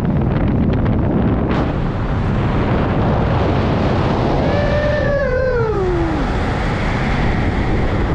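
Strong wind rushing over the microphone of a skydiver under an open parachute canopy, steady with a few gusts early on. About five seconds in, a drawn-out call falls in pitch and fades.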